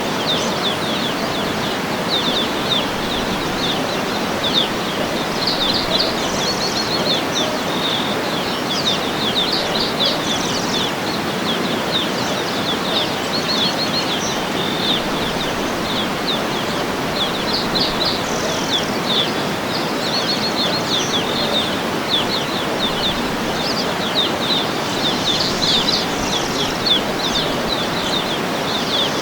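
Steady rushing of a waterfall, with small birds chirping over it in many short, quick notes throughout.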